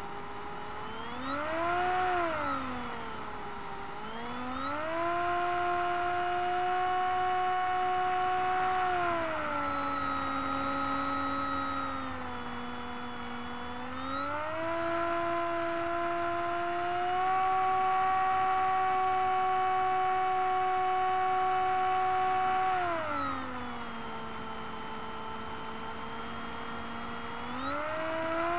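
Radio-controlled seaplane's motor and propeller whining, heard from the onboard camera. The pitch rises and falls with the throttle: a few quick dips and climbs in the first five seconds, then long steady stretches, highest in the middle, dropping low about three-quarters through and climbing again near the end.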